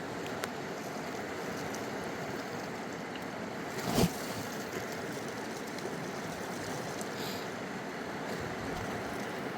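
Steady rushing of river water, with one sudden loud thump about four seconds in.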